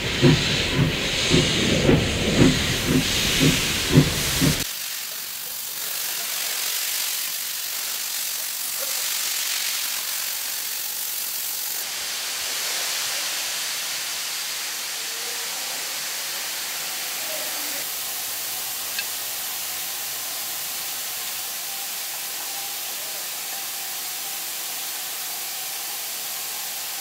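Class 15F steam locomotive's exhaust chuffing, about two beats a second, cutting off abruptly about four and a half seconds in; after that a steady hiss of escaping steam.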